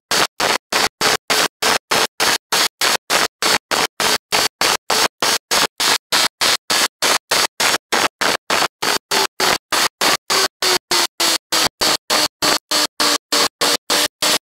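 Kawasaki ZZR1400 inline-four engine and wind rush heard from an onboard camera at track speed. The engine note dips about two-thirds of the way through and climbs again near the end. The recording cuts out several times a second, a stutter caused by dropouts in the audio track.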